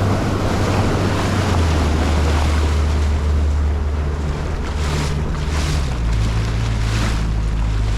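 Motorboat engine droning under way, its note shifting a couple of times, under heavy wind and rushing water noise on the microphone. A few brief surges of splashing spray hiss come in near the end.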